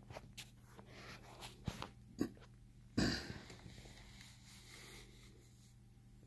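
Handling noise: a run of light clicks and rustles, then one loud, sudden burst of noise about three seconds in that fades out over the next two seconds, over a steady low hum.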